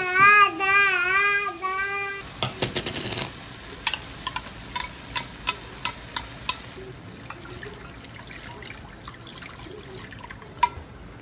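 A toddler whining and crying for about two seconds. Then cooking sounds from a frying pan of tomatoes: a run of sharp clicks and pops, then water poured into the pan, with one louder click near the end.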